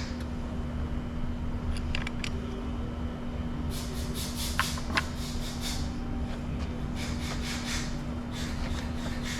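Repeated rasping strokes, about three a second, from cleaning a car battery's cable terminals. They start about four seconds in and pause briefly in the middle, over a steady low background hum and a few sharp clicks.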